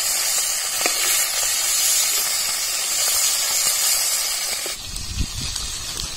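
Malgi fish sizzling steadily in hot oil in an iron kadhai as they are turned, with a few faint spoon clicks. About five seconds in the sizzle drops away, leaving a quieter low rumble.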